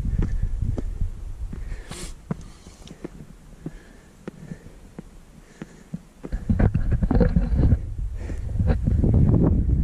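Footsteps and shoe scuffs on bare rock during a steep climb, with dull knocks and low rumbling from the body-worn camera. The low rumbling grows much louder about six seconds in.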